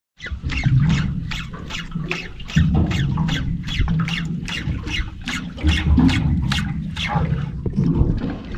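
Spinning fishing reel cranked steadily, giving a short sweep that falls in pitch on each turn of the handle, about three a second, over a low steady hum.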